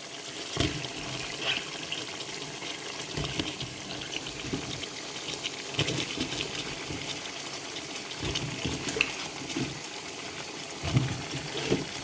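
Courgette chunks dropping one after another into a pan of curry masala, each landing with a soft thud over a steady sizzle.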